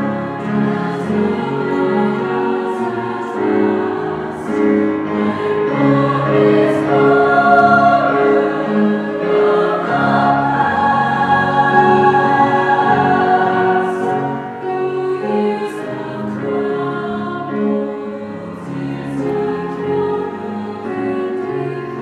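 Women's choir singing a slow choral piece in held, overlapping chords that shift every second or two.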